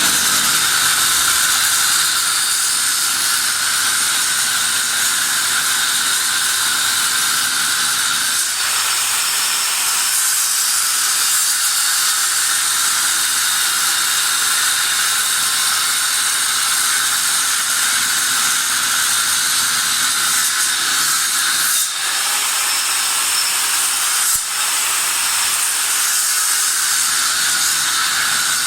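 Angle grinder with a cutting disc cutting through a bent steel hydraulic cylinder rod, a loud, steady grinding hiss that dips briefly twice near the end.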